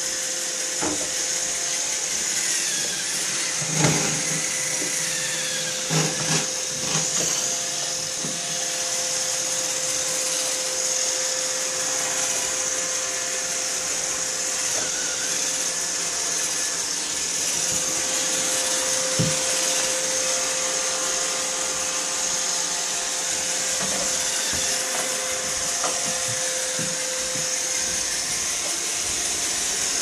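Roomba robot vacuum running, a steady motor whine with a high hiss. A few short knocks come about four and six seconds in.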